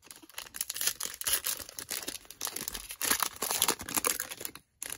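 Foil wrapper of a Panini Select football card pack crinkling and tearing as it is pulled open by hand: a dense run of irregular crackles, with a short pause near the end.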